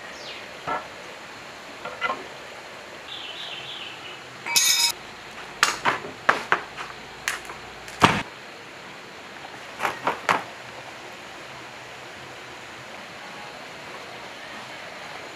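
Metal engine parts knocking and clinking as a generator engine's covers and housings are fitted by hand: a scatter of sharp clinks and knocks, the loudest a heavy thud about eight seconds in.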